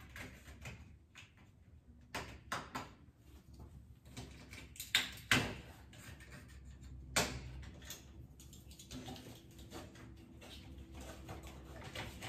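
Old window blind being worked loose from its mounting brackets: irregular clicks, knocks and rattles of the blind and its metal hardware, the loudest about five seconds in and again about seven seconds in.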